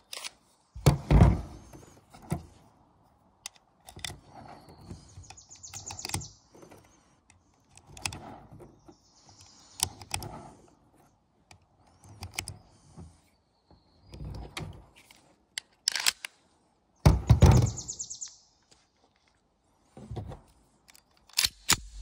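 Rounds of .45 ACP being pressed one by one into a SAR K2-45 pistol magazine: a series of small metallic clicks and knocks. Two louder thunks, about a second in and again later, come from the magazine and pistol being handled on a plastic table.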